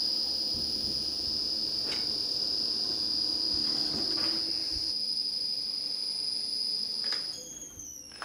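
A steady high-pitched whine, with a few dull knocks as a heavy half log of wood is handled on the coring machine. About seven seconds in, the whine slides down in pitch and fades away.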